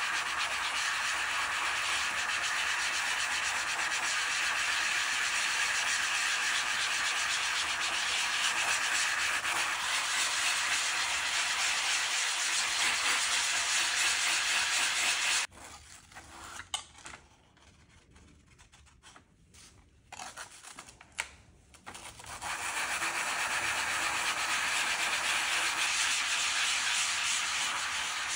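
Silicon carbide grit being ground by hand between a grinder and a glass plate, a steady gritty scrubbing as the glass is frosted into a ground-glass focusing screen. About halfway through it stops for several seconds, leaving only a few faint clicks, then starts again.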